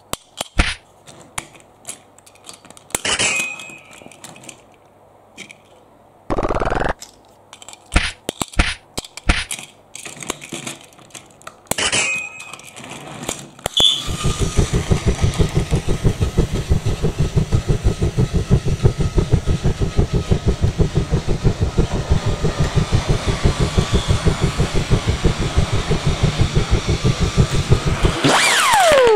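Hard plastic toy parts clicking and knocking as they are handled, then about halfway through a battery-powered Plarail toy engine starts running along plastic track: a steady motor whir with a fast, even clatter that goes on until near the end.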